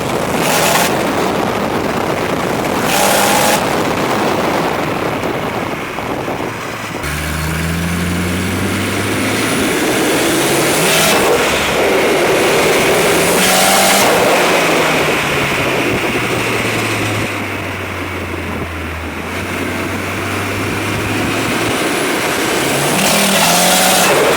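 Volvo 740 Turbo's four-cylinder turbo engine running with a misfire that the owner calls weird, its pitch rising and falling as the revs change. Several short loud bursts of noise break through the engine note.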